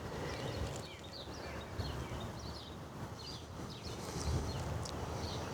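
Small birds chirping, many short calls one after another, over a low steady rumble.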